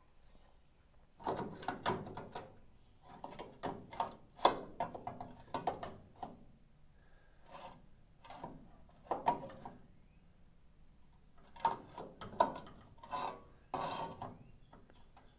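A new sheet-metal lower A-post repair panel is handled and offered up against the rusted original on a VW Bus. The sound is metal and gloved hand scraping, rubbing and clicking, in four irregular bouts with short pauses between them.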